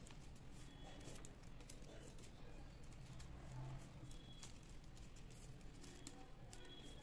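Faint, scattered clicks and light rustling of plastic craft wire strands being handled and knotted by hand, over a low steady hum.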